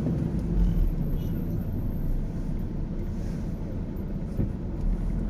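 Car running along the road: a steady low rumble of engine and road noise.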